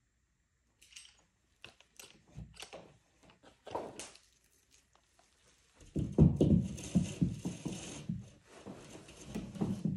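Hands working a cable and tools at a wall: scattered light clicks and knocks at first, then from about six seconds a louder run of rustling, scraping and thumps.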